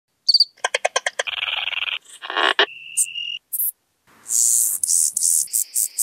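A quick run of different insect calls spliced one after another: evenly spaced chirps, buzzing stretches, a steady high trill, and fast high-pitched pulses near the end, each piece breaking off abruptly into the next. These are calls of crickets and grasshoppers.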